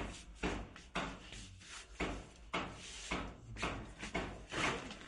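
Irregular knocks, bumps and rustling, about two a second, as of household objects or furniture parts being handled and moved.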